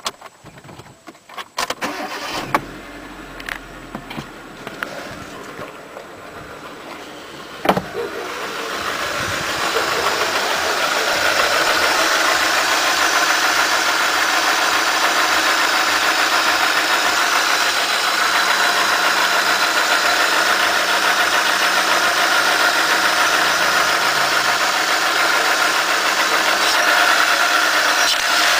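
Hyundai Accent engine started after a few knocks, then running with a loud, steady noise that builds up over a few seconds from about eight seconds in. This is the strange noise that worries the owner.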